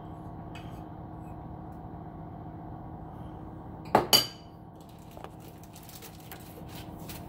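A metal spoon scraping melted chocolate out of a ceramic bowl, then about four seconds in a sharp double clink as the bowl and spoon are set down on the countertop. A steady low hum runs underneath.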